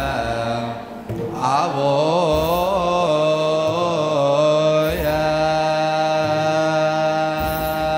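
Choir singing an Ethiopian Orthodox wereb chant: a wavering, ornamented vocal line that settles about five seconds in onto a long held note.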